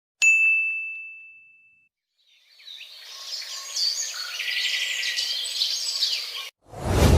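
A single bright bell-like ding that rings out and fades over about a second and a half, followed by a few seconds of birds chirping. A sudden loud, low sound cuts in just before the end.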